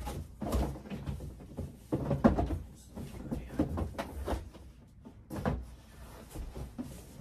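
Cardboard shoe boxes being handled and opened: irregular knocks and thumps with rustling in between.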